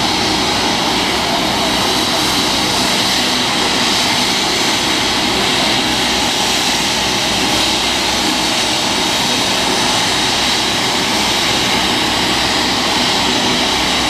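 Rescue helicopter running: a steady, loud engine whine and rotor noise with a fast low pulsing from the blades.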